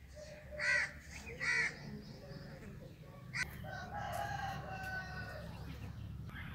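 Birds calling: two short calls about a second in, then one longer drawn-out call lasting about two seconds, over a low steady rumble.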